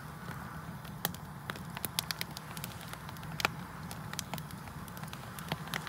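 An open fire crackling, with irregular sharp pops over a low steady rumble of the burning; the loudest pop comes about halfway through.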